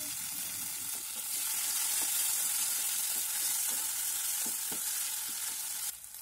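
Small onions, garlic and tomato sizzling in hot oil in a metal pan as they sauté, with a wooden spatula stirring and giving a few light taps. The sizzle grows louder about a second in and drops off just before the end.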